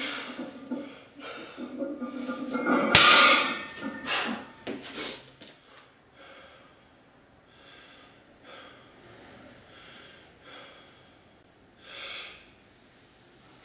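A weightlifter breathing hard after a heavy deadlift, with one sharp loud bang about three seconds in as the loaded barbell comes down onto the floor. After that come short hissing breaths about once a second.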